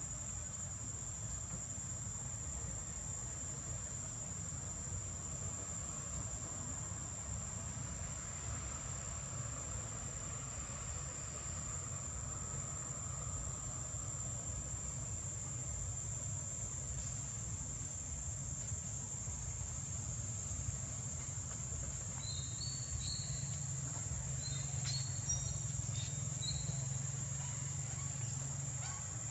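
Steady high-pitched trill of an insect chorus over a low, even rumble, with a few short, high chirps near the end.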